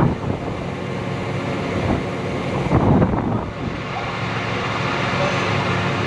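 A vehicle engine running steadily under road and wind noise, with a louder rush about three seconds in.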